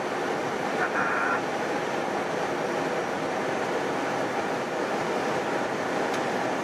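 Steady rush of airflow and engine noise inside an Airbus A320 cockpit on final approach, with a brief higher tone about a second in.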